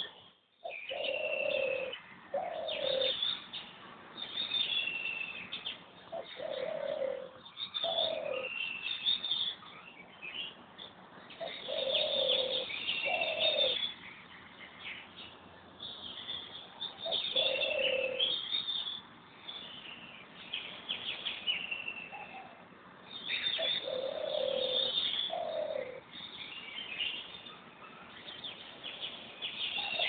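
Wild birds calling: a low two-note call repeats about every five seconds over continuous high chirping and trilling from other birds.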